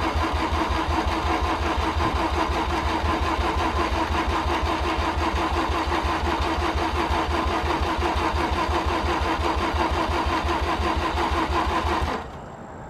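Starter motor cranking a Mazda RX-7's rotary engine in a steady, even rhythm with a constant whine. The engine never catches, despite fresh fuel, and the cranking stops abruptly near the end.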